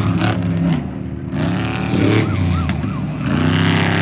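Off-road race truck engines revving as the trucks go by, the engine note climbing and dropping several times, with another truck getting louder near the end.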